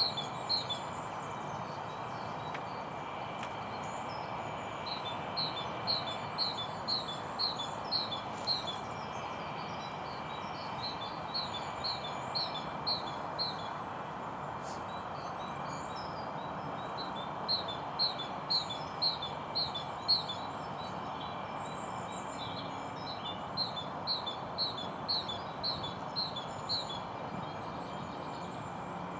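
A small songbird singing phrases of about eight quick, evenly spaced high notes, repeated every few seconds, over a steady rushing noise.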